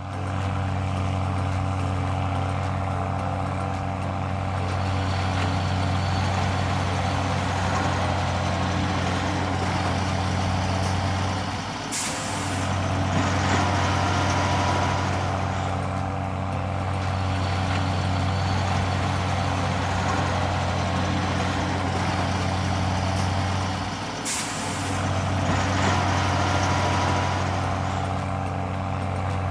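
Heavy diesel truck engine running steadily, with a short air-brake hiss twice, about twelve seconds apart.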